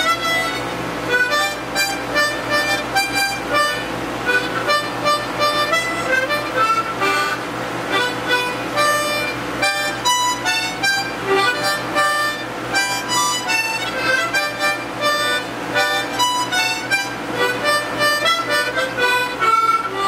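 A harmonica playing a tune, a steady run of short notes and chords.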